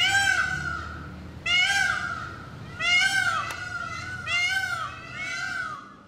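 Male Indian peafowl (peacock) giving a series of five loud calls, each arching up and then down in pitch, about one every second and a half.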